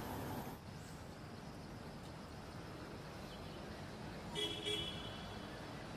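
Steady background noise with a short vehicle horn toot about four and a half seconds in.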